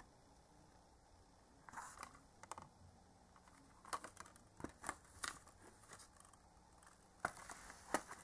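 Faint handling noise from a clear plastic Blu-ray case and the box's contents being lifted and moved: scattered light clicks and rustles, bunched a little past the middle and again near the end.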